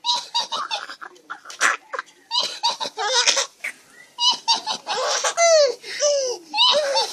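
Baby laughing in repeated bursts of giggles and belly laughs, set off by an adult's funny vocal noises.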